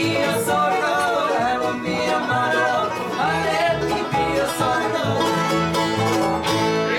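Live acoustic bluegrass band playing together: five-string banjo, fiddle, mandolin, acoustic guitar and upright bass.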